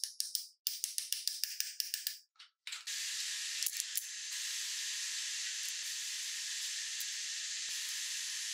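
A wire brush scrubbed quickly back and forth over a steel tube, about seven strokes a second, with a short pause. About two and a half seconds in, an electric welding arc strikes and runs on with a steady hiss as the tube is welded.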